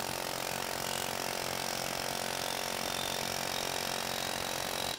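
Ingersoll Rand 114GQC medium-barrel pneumatic air hammer running flat out at 90 psi, its bit hammering a steel wedge in a test fixture. It makes a steady, rapid hammering at an even level and stops abruptly at the very end as the trigger is released.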